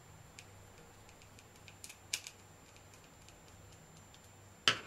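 Faint, sparse clicks of a Pozidriv screwdriver turning a screw out of the strain relief of a rewirable Schuko plug, with a sharper click near the end.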